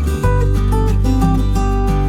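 Background music: acoustic guitar playing over a steady bass, with the notes changing every fraction of a second.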